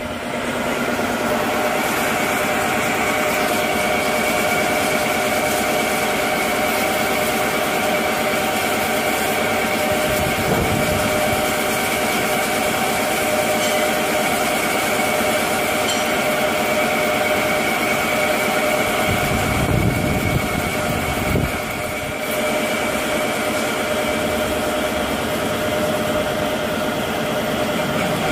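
CNC lathe running, its spindle turning a metal mould part while a turret-mounted tool cuts it under coolant: a steady machine hum and whine with several steady tones. Two brief low rumbles come about ten and twenty seconds in.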